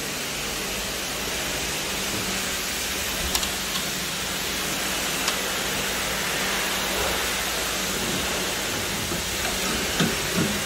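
Steady hiss of water spraying on a car at a car wash, with a faint hum underneath and a few light clicks.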